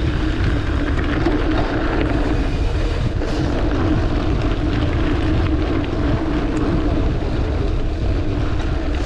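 Wind buffeting the bike-mounted camera's microphone, mixed with mountain bike tyres rolling over a dirt forest road at speed: a steady, loud rushing noise.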